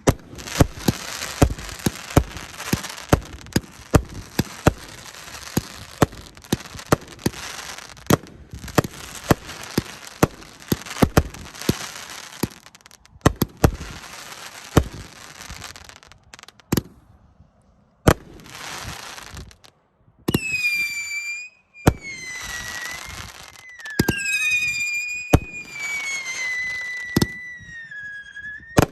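Winda 'Wet My Whistle' 500-gram firework cake firing: a rapid run of shots and bursts over a crackling hiss. From about twenty seconds in come shrill whistles that glide slowly down in pitch.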